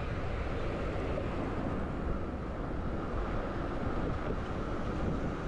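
Wind rushing over the camera microphone while riding a bicycle, a steady low rushing noise with no separate events.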